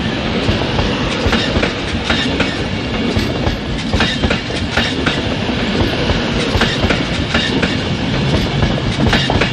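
Virgin Trains Class 390 Pendolino electric train running past at the platform, a steady loud rumble with irregular clacks of the wheels over rail joints.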